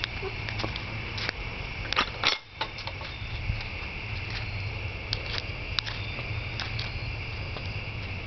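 Scattered clicks and knocks from a handheld camera being moved about, with a louder cluster of clicks about two seconds in and a brief drop-out just after it. Under them runs a steady high-pitched drone and a low hum.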